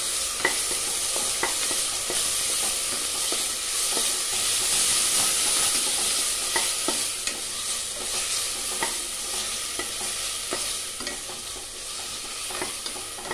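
Ground mint paste with onions sizzling in hot oil and ghee in a stainless steel pressure cooker pot, stirred with a wooden spatula that clicks and scrapes against the pot again and again.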